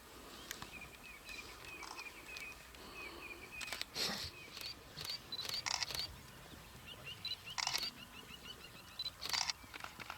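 Camera shutters firing in short bursts several times, over a run of high, quick chirping calls from small birds.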